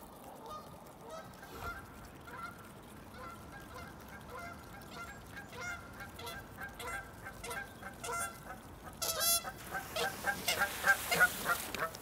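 Canada geese honking in short, repeated calls that come thicker and louder toward the end. Near the end there is a rush of splashing water as a goose comes down onto the lake.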